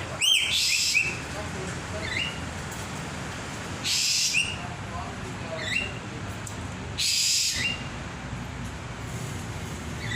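A caged bird giving short rising whistled notes about every two seconds. Three brief hissing bursts cut in: near the start, about four seconds in and about seven seconds in.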